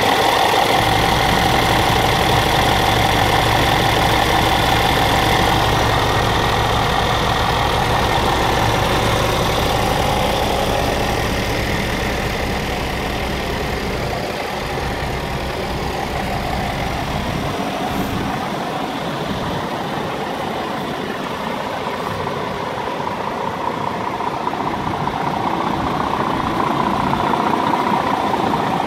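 Scania R490 tractor unit's 13-litre straight-six diesel idling steadily. The deep hum is strongest at first, close to the engine, thins out about halfway through as the microphone moves to the rear of the truck, and builds again near the end at the front grille.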